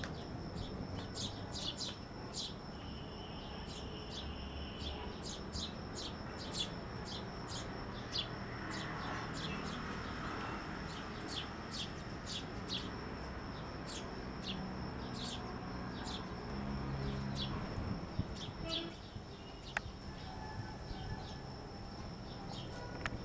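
Sparrows chirping: short, sharp, high chirps at about one or two a second, over a steady faint high-pitched whine.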